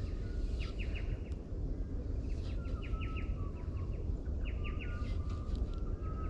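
Birds chirping in repeated quick runs of short, high notes, with a few thin whistles, over a steady low rumble of outdoor background noise.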